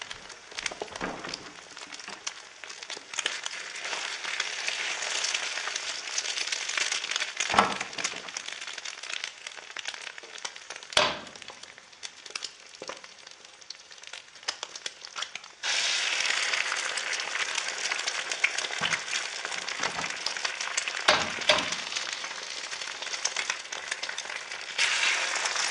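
Egg frying in a pan: a steady crackling sizzle with sharp pops of spitting fat, three of them loud. The sizzle suddenly gets louder about two-thirds of the way through and again near the end.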